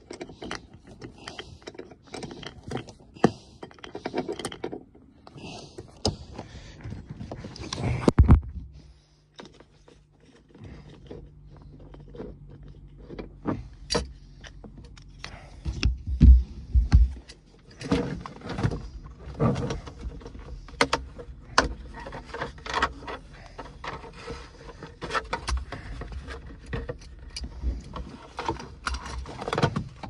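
Irregular clicks, scrapes and knocks from a car seatbelt being fitted by hand: an L-shaped key working the belt's anchor bolt, metal belt hardware clinking, and plastic pillar trim being handled. A few heavier thumps come about sixteen seconds in.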